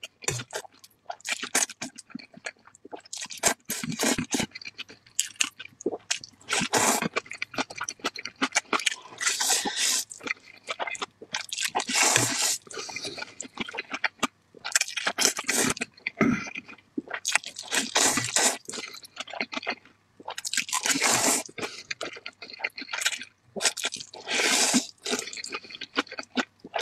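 Close-miked slurping of a mouthful of noodles, drawn in as repeated wet bursts every couple of seconds, with chewing between them.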